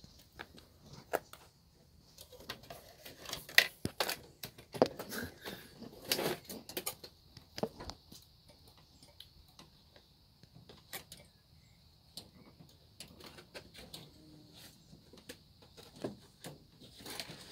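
Batteries and the plastic battery holder being handled inside a megaphone's battery compartment: irregular sharp clicks and knocks, busiest a few seconds in and again near the end, over a faint steady high hiss.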